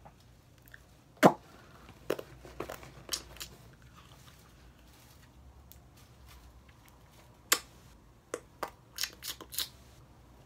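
A small wrapper being torn open and crinkled by hand. Scattered short crackles and rustles come in two clusters, with a quiet stretch of a few seconds between them.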